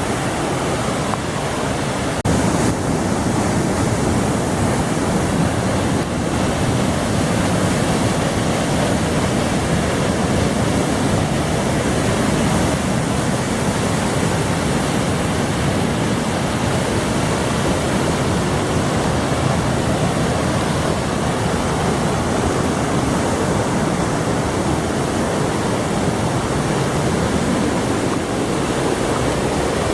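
Waterfall: water rushing and splashing in a loud, steady roar with no breaks.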